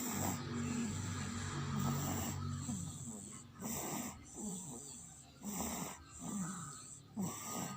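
A person snoring, the snores coming about every two seconds over the second half.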